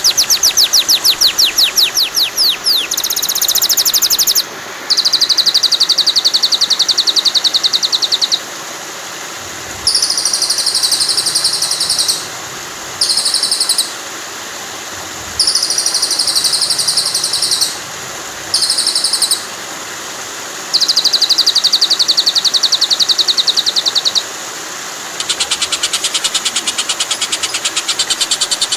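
Songbird chirping in fast runs of rapidly repeated high notes, in bursts of one to four seconds with short gaps, over a steady hiss of running water. It is a bird-song masteran track: recorded song for teaching captive white-rumped shamas.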